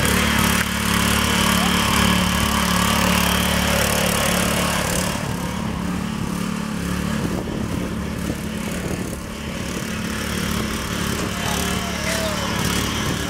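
Small engine of a Powerhorse wheelchair-carrier platform running steadily as it drives over grass, a little quieter after about five seconds.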